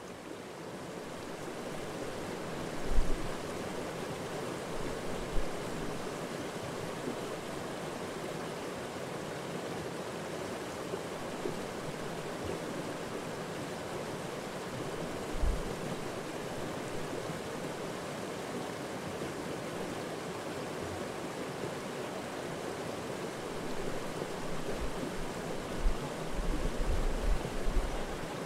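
Shallow mountain stream rushing over a rocky bed: a steady wash of water noise. A few short low thumps come about three, five and fifteen seconds in, and a cluster of them near the end.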